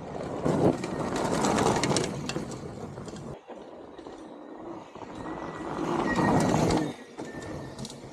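Electric dirt bike, a YZ85 frame converted to a 72 V 8000 W hub motor run as a mid drive, riding along a stony dirt trail: tyres crunching over gravel with a rapid clatter of small clicks and rattles, and a faint high motor whine as it comes closer. There is no engine note.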